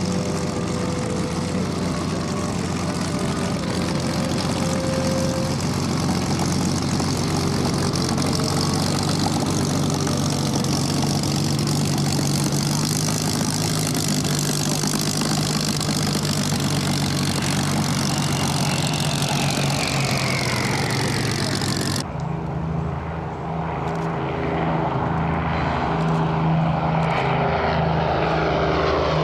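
Supermarine Spitfire's V12 piston engine running steadily with its propeller turning as the fighter taxis. About two-thirds of the way through, an abrupt cut switches to the four piston engines of an Avro Lancaster bomber flying past, their pitch sliding down near the end.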